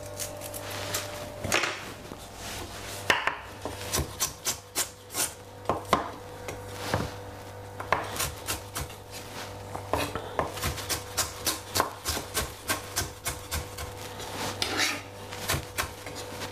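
Kitchen knife chopping on a wooden cutting board, most likely a piece of ginger being cut. It is a run of irregular sharp strokes, a few of them louder, over a steady low hum.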